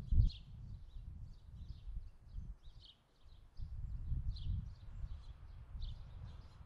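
Small birds chirping in short, quick calls over a low rumble, with a single loud thump just after the start.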